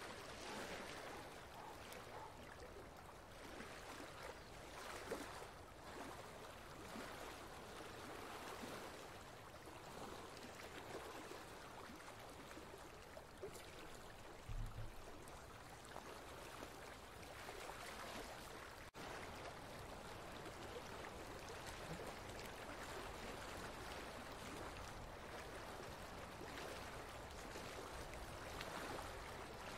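Soft, steady sound of a flowing stream, water rushing gently, used as a sleep ambience bed. A brief low thump about halfway through.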